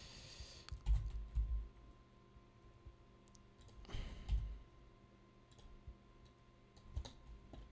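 A few scattered clicks of a computer mouse and keyboard, with soft low thumps and two brief rustling noises, one at the start and one about four seconds in.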